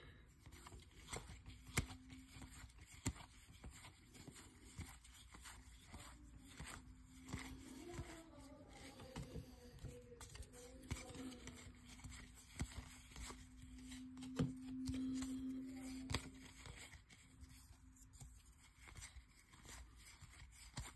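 Stack of Topps baseball cards being flipped through by hand, card by card: soft clicks, flicks and scrapes of card stock sliding over card stock. A faint low hum runs through the middle.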